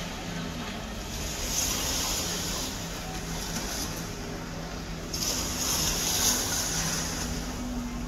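Low, steady drone of distant boat engines across the water, with two brief rushes of hiss from surf or wind about a second and a half and five seconds in.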